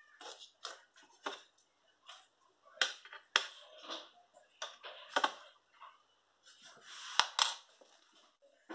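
Fork working a baked potato open on a plate: irregular crackly scrapes of the skin and flesh being pulled apart, with a couple of sharp clicks of the fork against the plate.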